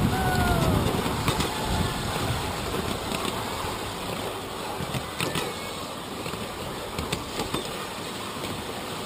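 A 7¼-inch gauge miniature train running along its track, pulled by a battery electric locomotive: a steady rumble of wheels on rail, stronger in the first second, with a few sharp clicks.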